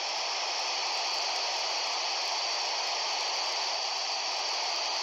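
Steady FM static hiss from a Kenwood dual-band handheld transceiver tuned to the ISS downlink on 145.800 MHz, squelch open with no voice on the channel.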